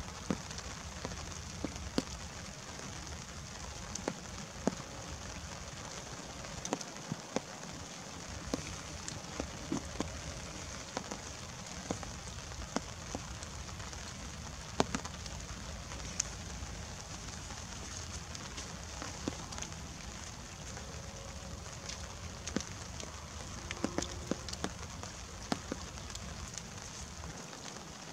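Light rain: a steady soft hiss with drops tapping close by at irregular moments.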